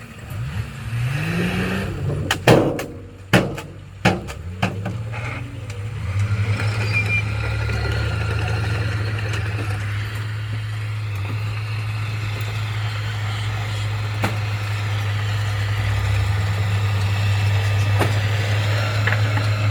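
Diesel engine of heavy construction machinery rising in pitch, several loud knocks about two to four seconds in, then the engine running steadily.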